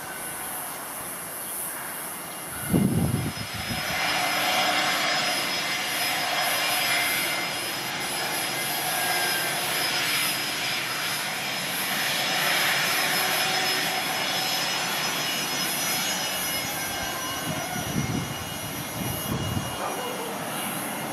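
Fokker 70's two rear-mounted Rolls-Royce Tay turbofans running at low power as the jet taxis: a steady jet whine with held high tones. A brief loud low rumble comes about three seconds in, and a few smaller ones near the end.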